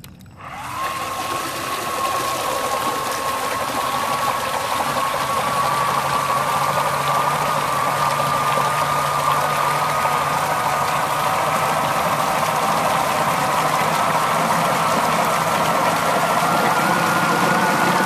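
Electric motor and CNC-machined Delrin gearbox of a 3D-printed RC snow blower driving its impeller, pumping water out of a tub through the chute. A steady gear whine starts about a second in and slowly creeps up in pitch, over the rush and splash of the thrown water.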